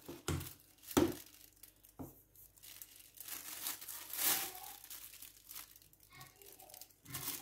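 Thin plastic bag crinkling and rustling as it is held open and filled with plantain batter. In the first two seconds there are a few sharp knocks of the metal spoon against the pot, the loudest about a second in.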